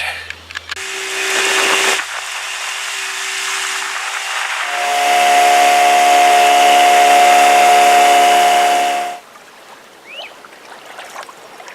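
Boat's outboard motor running steadily at speed, a constant engine drone over rushing wind and water, changing abruptly twice and cutting off suddenly about nine seconds in.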